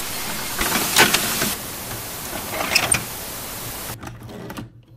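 Television static hiss with glitchy crackles, used as a signal-loss effect. It cuts off about four seconds in, leaving a faint crackle that dies away.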